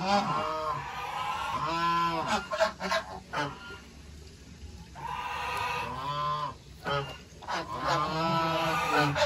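White domestic geese honking repeatedly in a run of loud, nasal calls, with a short lull in the middle.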